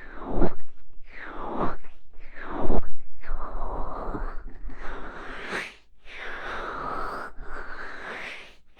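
Hands cupping over and rubbing an ASMR microphone's ears, a muffled swishing whose hollow resonance shifts as the hands close and open. There are about three quick strokes, then three longer, slower ones.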